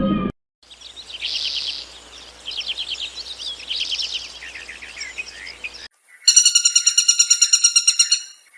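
A songbird singing a run of quick trilled phrases. Near the end, after a cut, an evenly pulsed buzzing call of about a dozen pulses a second.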